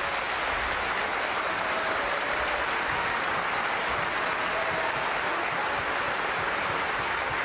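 An audience applauding: dense, steady clapping at an even level.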